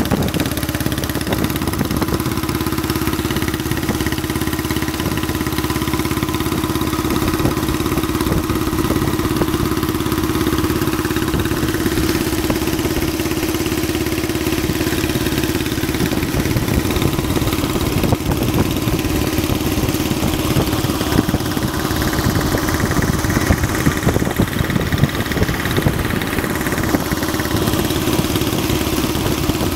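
Motorcycle engine running steadily at cruising speed, with wind and road noise from travelling alongside it.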